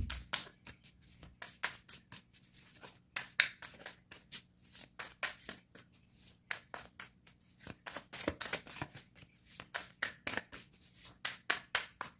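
A tarot deck shuffled by hand: a run of quick, irregular papery card clicks and snaps, thicker in the last few seconds.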